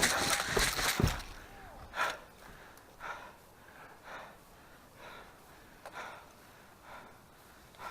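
Close rustling movement for about the first second, then a person breathing hard, about one breath a second.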